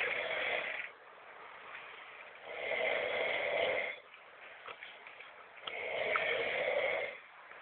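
A man snoring heavily in his sleep: loud, rasping snores about every three seconds, each lasting a second or so, with quiet breathing between.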